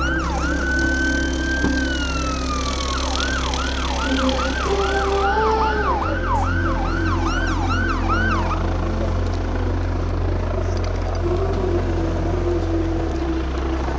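Emergency vehicle sirens: a fast yelp sweeping up and down about twice a second, with a slower wail glide near the start. The yelping stops about two-thirds of the way through, leaving a steady low rumble.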